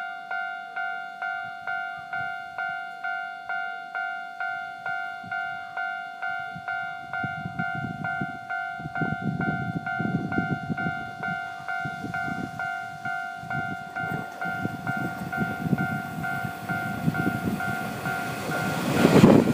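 Japanese railway level-crossing alarm dinging steadily, about two dings a second, over the low rumble of an approaching Keio Inokashira Line train. Near the end the train passes very close and its noise suddenly becomes loud, swamping the alarm.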